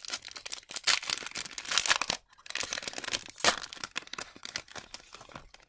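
Plastic wrapper of an Upper Deck MVP hockey card pack being torn open and crinkled by hand: a run of crackling tears with a brief lull about two seconds in and one loud sharp crackle about three and a half seconds in.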